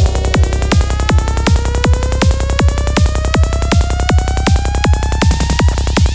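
Psytrance at 160 BPM: a steady four-on-the-floor kick drum with a rolling bassline, under a synth tone that glides slowly upward in pitch.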